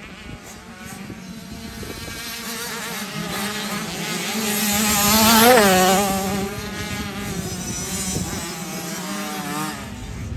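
Motocross bikes racing by; the engine note builds as one approaches, is loudest a little past halfway as it passes close, and its pitch drops as it goes away.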